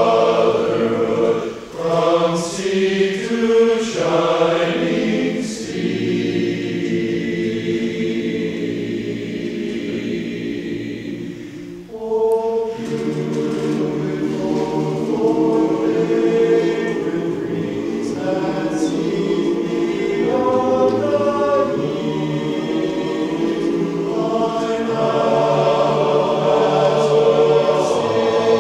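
Men's chorus singing a cappella, holding a long chord in the middle and breaking off briefly about twelve seconds in before the next phrase.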